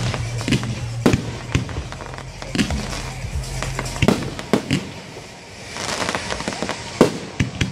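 A fireworks barrage: aerial shells bursting in quick succession, with sharp bangs every half second to a second and sparkling crackle between them. A denser burst of crackling comes about six seconds in.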